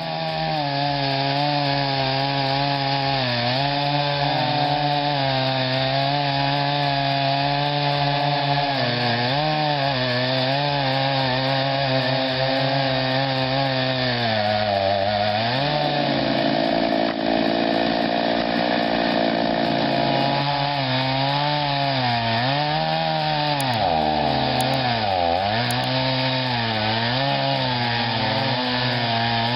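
A motor-driven log-processing machine running hard on wood, with a steady engine note. Its pitch sags and recovers several times as the load comes on, most often in the last few seconds.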